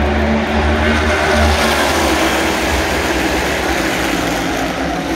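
A pack of NASCAR Cup Series stock cars racing past, their V8 engines running at full throttle in a dense, steady rumble. It is loudest in the first couple of seconds as the cars go by, then eases off slightly as they move away.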